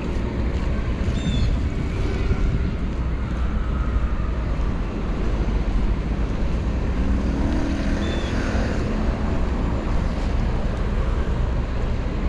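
Steady city street traffic noise with a heavy low rumble, and a passing vehicle's hum briefly rising around eight seconds in.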